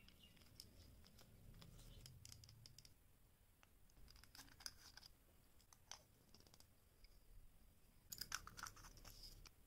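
Faint crinkling and rustling of a plastic candy wrapper being pulled off, with small plastic clicks as the candy packs are handled. A quick run of sharper clicks comes near the end.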